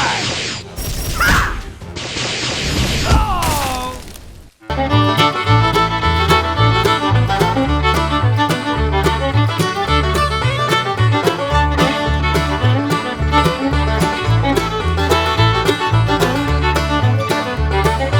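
A few short cartoon-style sound effects with sliding pitch, then about four and a half seconds in, upbeat background music with a steady bass beat starts and carries on.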